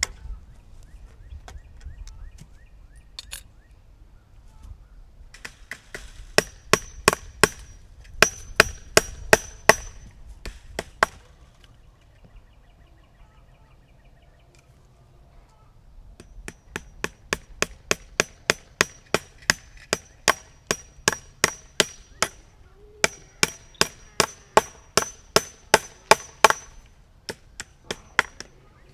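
Steady hammer blows, about two or three a second, in three runs with pauses between, each strike with a short metallic ring: nails or a pin being driven into a wooden fence-brace post.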